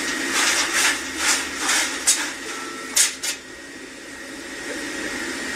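Steady hum and hiss of a fast-food kitchen's fryer station and exhaust hood. Over it comes a quick run of short, sharp clicks and clatters in the first three and a half seconds.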